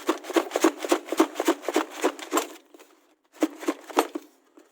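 Rapid series of sharp clicks and taps, about four or five a second, stopping after about two and a half seconds, then a few more clicks about a second later.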